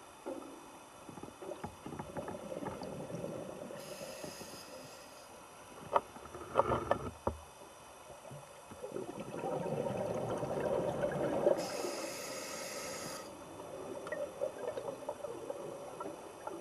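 Scuba diver breathing through a regulator underwater: two hissing inhalations and rumbling, bubbling exhalations, with a few sharp clicks about six to seven seconds in.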